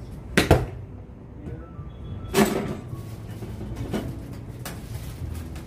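Sharp clicks of golf club heads striking balls: a quick pair about half a second in, the loudest a couple of seconds later, then two fainter ones, over a steady low hum.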